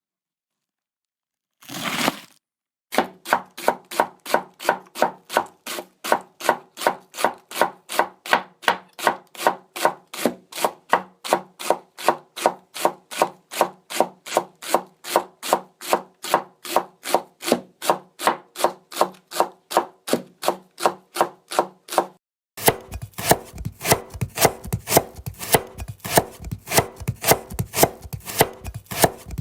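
Japanese kitchen knife (houchou) chopping ingredients on a cutting board in a steady rhythm of about three strokes a second, after a short noise at the start. About two-thirds of the way through it changes to faster, denser chopping with a low steady hum underneath.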